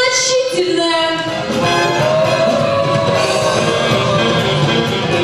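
Music with singing: a voice holding long sung notes over accompaniment.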